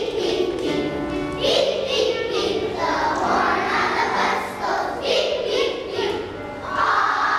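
A large group of young children singing a song together in unison.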